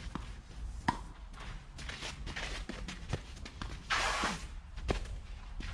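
Tennis rally: a ball struck and bouncing in sharp knocks, with players' footsteps and a shoe scuffing across the court about four seconds in.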